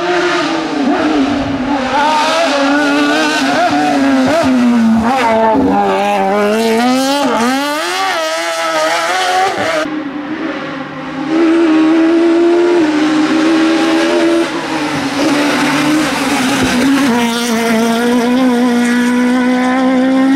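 Rally car engines revving hard through the gears, the pitch climbing and falling with each shift and lift. The sound breaks off abruptly about ten seconds in and picks up with another loud run of high revs.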